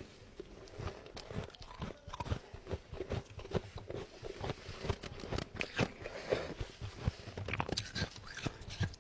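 Freezer frost being bitten and chewed: a dense, irregular run of crisp crunches.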